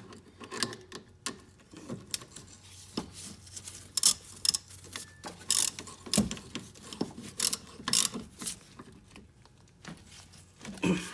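Irregular metallic clicks and clanks of hand tools and brake hardware being handled while the caliper bolts are snugged up with a 14 mm socket.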